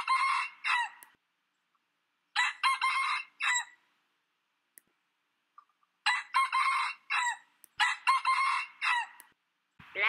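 Sri Lanka junglefowl crowing four times, a few seconds apart. Each crow is a short run of clipped notes.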